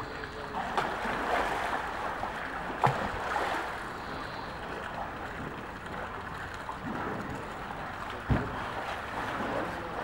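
Pool water splashing and sloshing as a young polar bear swims and plays, over the steady splatter of a water jet falling into the pool. Two sharper knocks stand out, about three seconds in and again about eight seconds in.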